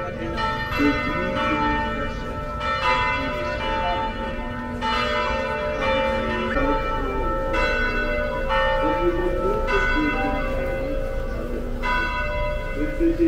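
Bells ringing in a slow, uneven series of strikes, a new stroke every one to three seconds, each tone ringing on into the next.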